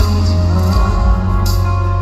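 Background music: a soft, steady pop song with a strong bass line, held notes and regular percussion hits.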